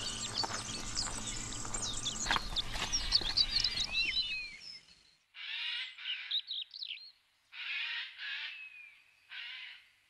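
A dense chorus of chirping birds over a low background hum, cutting off about four and a half seconds in. Then come four harsh, raspy bird calls, each about half a second long, with short quiet gaps between them.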